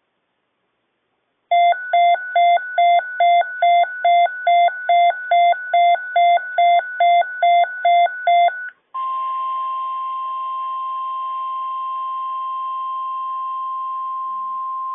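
Emergency weather alert tones: a run of about sixteen electronic alert beeps, about two a second, then a steady single high tone from about nine seconds in, the NOAA Weather Radio 1050 Hz warning alarm tone that signals an alert message, here a tornado watch, is about to be read.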